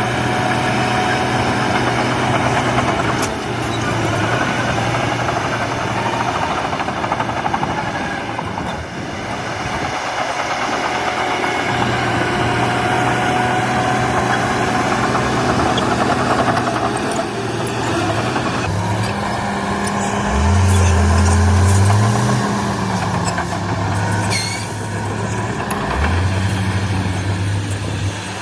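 Heavy diesel engines of earthmoving machinery running steadily, with one engine revving up hard about twenty seconds in and again near the end.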